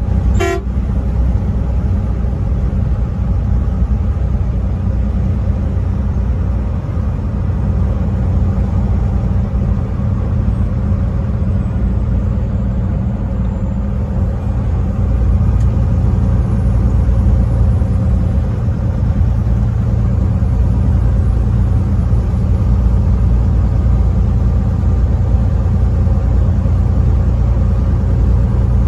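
A truck horn gives a brief toot right at the start, then a truck driving with a steady low engine and road rumble.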